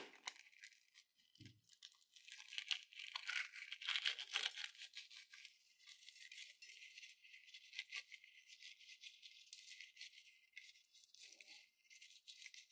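Small plastic cup sequins pouring out of a balloon into a palm: a faint, dense rattle of tiny clicks, busiest a few seconds in.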